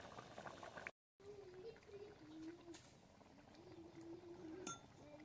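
Near silence: the audio cuts out completely for a moment about a second in, then faint room tone with a thin wavering tone and a single light click near the end.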